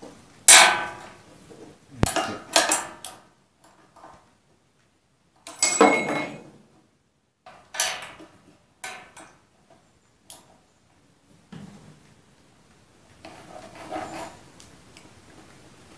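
Irregular metal clanks and knocks from handling the wood chipper's red metal hopper and parts by hand, a handful of sharp hits with short ringing. The hits are loudest in the first six seconds and thin out to quieter taps and rustling later.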